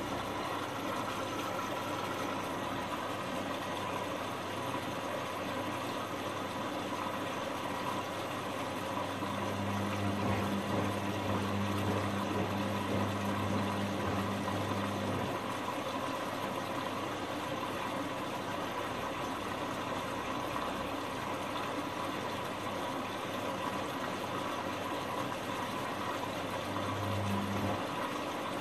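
Sangiorgio S5510I front-loading washing machine in the wash phase of a cotton programme: sheets and soapy water sloshing in the drum. The drum motor hums for about six seconds in the middle as it turns the drum, and again briefly near the end.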